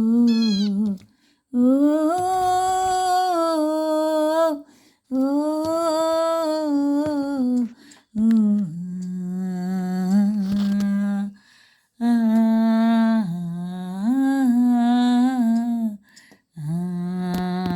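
A person humming a slow melody in long, smoothly held phrases of a few seconds each, with short breaks for breath between them.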